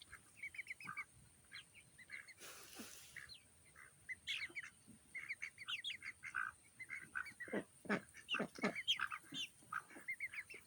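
A flock of chickens and ducks calling while they feed: a steady stream of short chirps and peeps, with a run of louder, deeper calls about seven and a half to nine seconds in. A brief rustle about two and a half seconds in.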